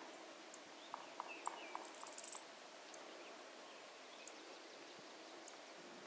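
Chipping sparrow foraging in dry leaf litter: a scatter of soft ticks and rustles about one to two seconds in, with a brief very high trill just after two seconds, over a faint outdoor background.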